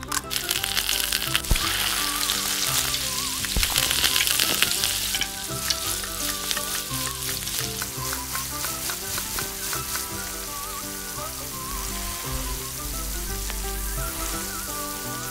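Egg sizzling as it hits hot oil in a small steel pot. The sizzle is loudest for about the first five seconds, then carries on more quietly while the egg is stirred and scrambled with a small spoon.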